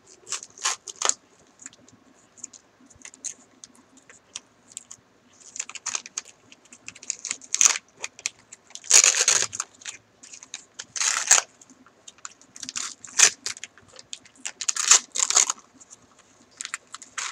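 Paper wrapping crinkling and rustling as it is unfolded by hand: irregular crackles with several louder bursts of handling.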